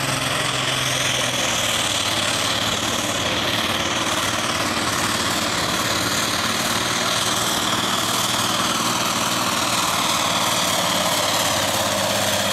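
Minneapolis-Moline G1350 pulling tractor's turbocharged diesel engine running hard under load as it drags the weight sled. The sound is steady throughout, with a high whine held above the engine note.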